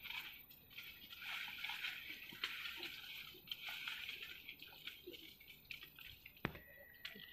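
Rustling and crackling of leaves, twigs and epiphytic plants as a person climbs and works through tree branches, with many small clicks. A single sharp snap or knock about six and a half seconds in, followed by a faint steady high tone near the end.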